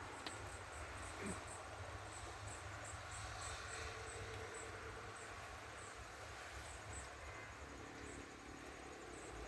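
Crickets chirping in short, high-pitched chirps, several a second, over a faint low rumble.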